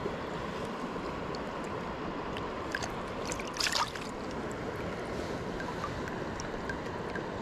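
Steady rushing of river water flowing past, with a short splash about three and a half seconds in.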